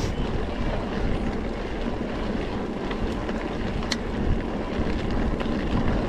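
Mountain bike ridden over a trail: steady wind buffeting the microphone over the rumble of the tyres and bike, with a few sharp rattles and clicks.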